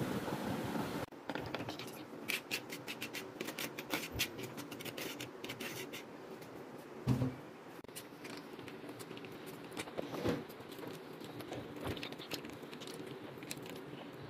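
Small kitchen handling sounds: a run of quick clicks and scrapes, then a knock about seven seconds in and another about ten seconds in, as a pack of cream is handled and squeezed into a ceramic bowl with a steel spoon in it.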